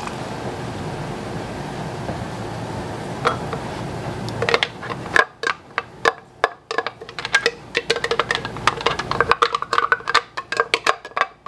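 A steady hiss for about five seconds, then background music with a light, knocking percussion beat.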